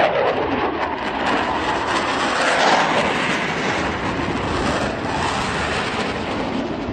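Eurofighter Typhoon jet, its twin EJ200 turbofans running loud during a low-level pass, a dense roar whose pitch sweeps downward as the aircraft goes by, once near the start and again a few seconds in.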